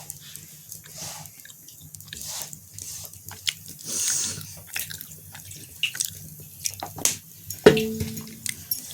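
Scattered small clicks and wet, squishing sounds of handling food or water, over a steady low hum, with a short pitched sound near the end.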